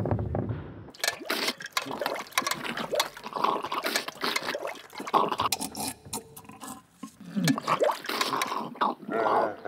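A person noisily slurping and gulping soup from a metal spoon and bowl: irregular wet sucking, splashing and dripping sounds with spoon clinks.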